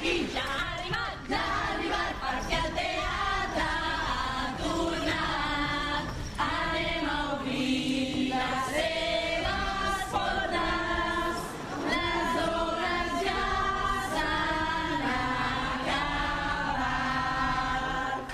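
A carnival chorus singing a satirical song together, many voices at once, without a break.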